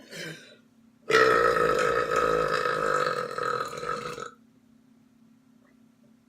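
A person's loud, long belch lasting about three seconds, starting about a second in and held at a fairly steady pitch. A brief shorter sound comes just before it.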